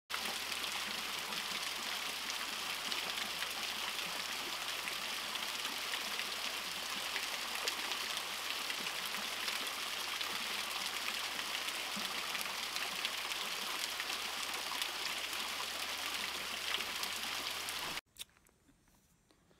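Small waterfall: a thin stream of water spilling down layered rock ledges, a steady splashing hiss that cuts off suddenly near the end.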